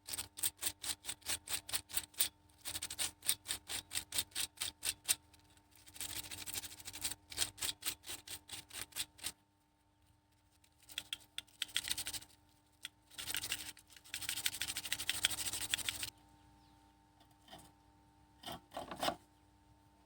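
Sandpaper rubbed in quick back-and-forth strokes over the metal contact strips of a three-phase motor starter, cleaning off the dirt that makes the starter hum. The scraping comes in runs of several strokes a second, with short pauses between the runs.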